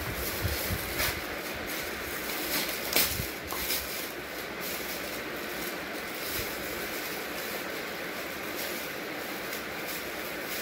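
Thin clear plastic bag crinkling and rustling as it is pulled and handled, with sharper crackles in the first four seconds, over a steady background hiss.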